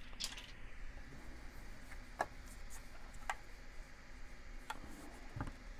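A few light, sharp clicks and taps of a white plastic alarm clock being handled, picked up from the table and turned over in the hands.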